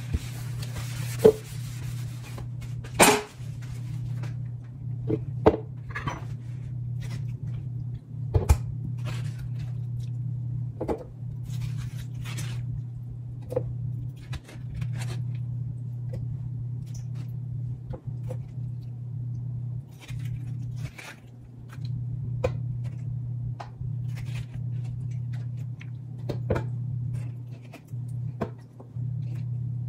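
Scattered knocks and clinks of kitchen handling, with a few louder knocks in the first several seconds, over a steady low hum.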